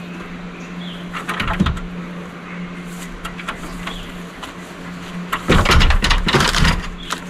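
A ladder being shifted and knocked against a wooden wall: scattered knocks and rattles, then a louder clatter of bumps starting about five and a half seconds in and lasting over a second, over a steady low hum.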